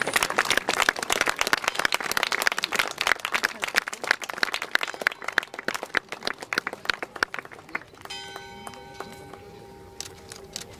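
A crowd applauding, the clapping thinning out over about seven seconds. About eight seconds in, a few steady held tones begin.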